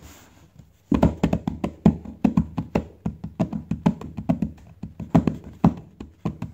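Fingers drumming on a wooden tabletop: a long run of quick, uneven taps, several a second, starting about a second in.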